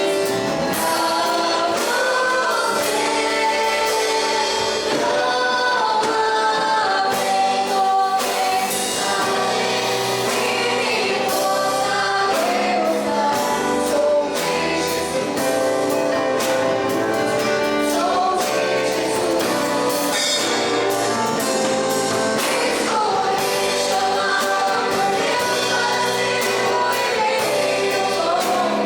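Gospel worship song sung by a group of voices with instrumental backing and a steady beat.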